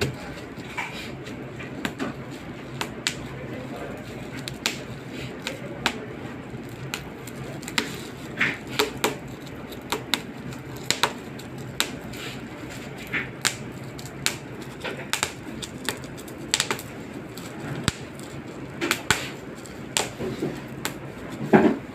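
Bubble wrap popping one bubble at a time: irregular sharp pops, about one or two a second, with the loudest pop near the end.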